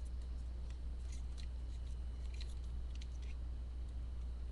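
Steady low electrical hum, with faint, scattered clicks of a plastic transforming toy's parts being handled.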